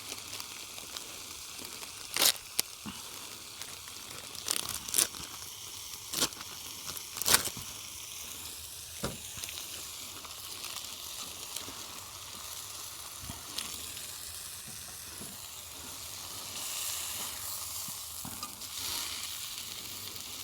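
Pork chops sizzling steadily in a pan over campfire coals, with about six sharp clicks in the first half.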